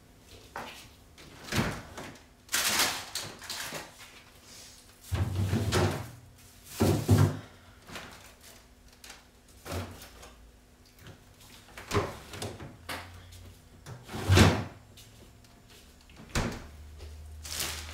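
Fridge door opened and shut with groceries set down on its shelves: a string of separate knocks and clunks, the loudest about three-quarters of the way through.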